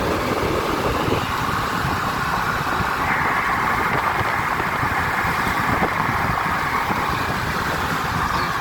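Steady road noise and engine hum inside a moving car.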